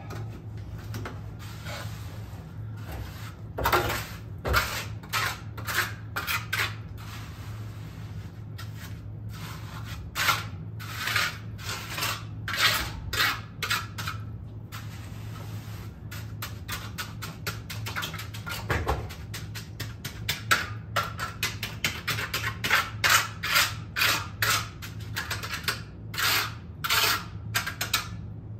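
Hand trowel working fresh concrete in a floor patch: many quick scraping strokes in runs with short pauses, over a steady low hum.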